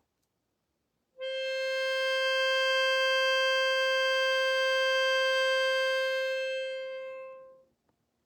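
One held musical note, about C above middle C and reed-like in colour, starting about a second in, staying level for about five seconds and then fading out.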